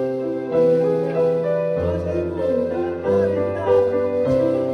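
Keyboard playing sustained chords over a bass line that changes note about every second and a half, in a slow passage of a band song.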